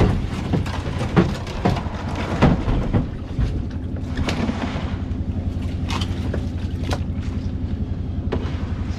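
Plastic fish boxes knocking and clattering as they are stacked and handed about, over the steady low hum of an idling engine.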